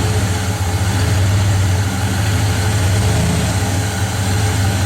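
Newly installed engine of a 1987 Ford Bronco idling steadily after its first start.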